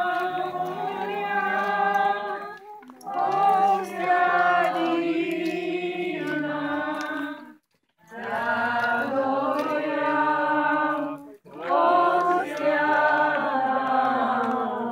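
A group of worshippers singing a hymn together without instruments, in four long phrases with short breaks between them.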